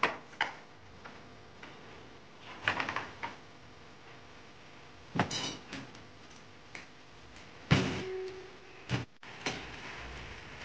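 Yamaha Mio Sporty plastic leg shield and an aluminium angle bar being handled and set against each other on a table: scattered knocks and clatters, the loudest about eight seconds in with a brief ringing note after it. Near the end a faint steady rubbing starts.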